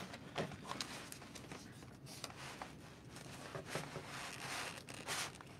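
Faint rustling of a cardboard box and its packaging being handled, with a few light, irregular taps and knocks.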